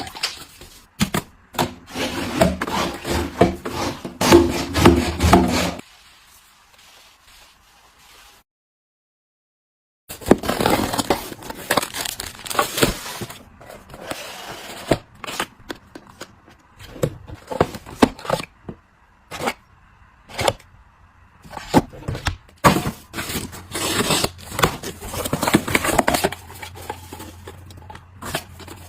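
Close-up handling of household items and packaging: a dense run of taps, clicks and knocks with scraping and crinkling, broken by a stretch of dead silence about a third of the way in.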